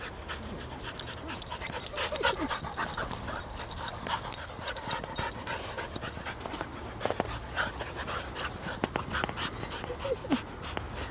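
Dogs playing rough together: short falling whines, about two seconds in and again near the end, over scuffling paws and knocks.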